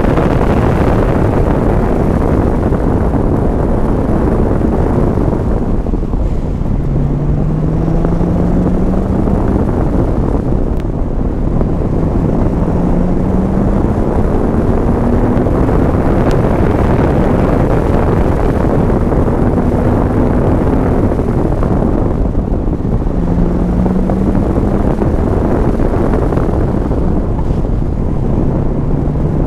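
Chevrolet Corvette C5 Z06's LS6 V8 pulling in third gear, heard from inside the cabin under steady road and wind noise. The engine's pitch rises several times as it accelerates, then drops back.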